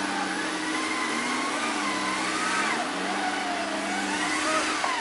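A vehicle engine running under a motor whine that rises and falls in pitch over a second or two at a time, typical of an electric winch hauling a stuck off-road 4x4 up a bank on its recovery line.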